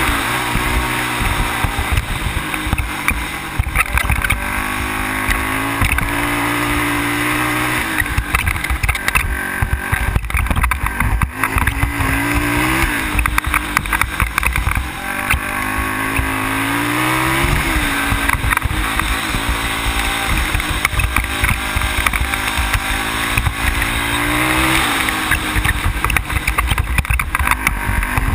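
Sport ATV engine running as it is ridden along a gravel road, its pitch climbing and dropping again and again as the throttle is opened and eased. Heavy rumble from wind and the rough road on the mounted camera, with scattered knocks and rattles.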